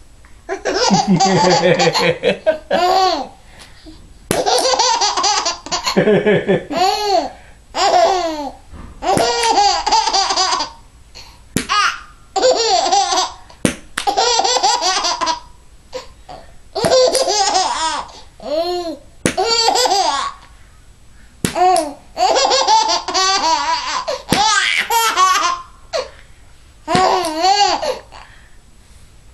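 A toddler laughing hard in about a dozen fits of a second or two each, high and squealing, with short pauses between them. A few short sharp clicks sound in the pauses.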